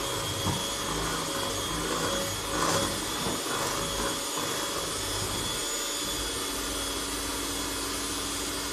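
Electric kitchen mixing appliance running steadily at high speed, with a high whine over its whirring and a few louder bumps in the first half.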